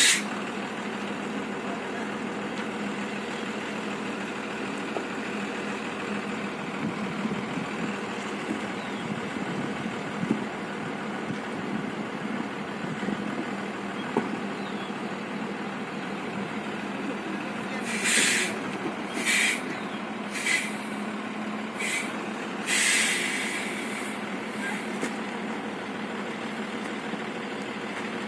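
Loaded diesel truck's engine running steadily as it crawls uphill. About two-thirds of the way through come five short hisses of air from its air brakes.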